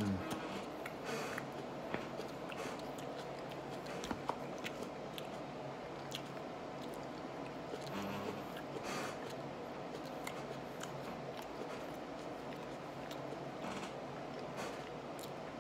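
A person chewing a whole California red chile pepper with the mouth closed: soft crunching and wet mouth clicks scattered throughout, over a steady low hum.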